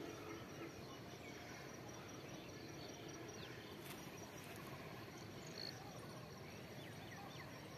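Faint field ambience: an insect's high, evenly pulsed trill runs steadily over a soft background hiss, with a few faint short chirps about halfway and near the end.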